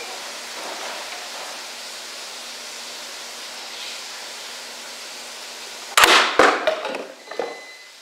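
A spring-powered Nerf dart blaster fires once about six seconds in with a sharp crack. A moment later the foam dart hits plastic water bottles, which fall over and clatter on a wooden table, dying away within about a second. Before the shot there is only a steady low room hiss.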